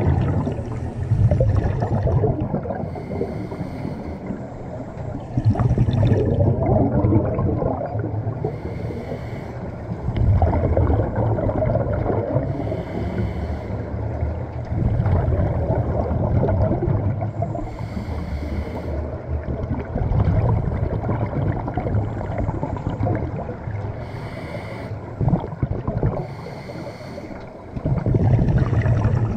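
Scuba diver breathing through a regulator underwater: short hissing inhales alternate with longer bubbling exhales, a breath about every five seconds.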